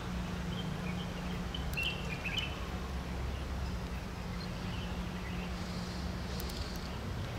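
Steady low mechanical hum from distant machinery or an idling engine, with a few short bird chirps about two seconds in.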